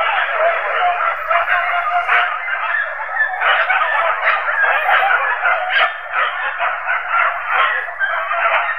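A pack of hunting dogs yelping and baying together in a dense, continuous chorus, as they do when chasing a wild boar.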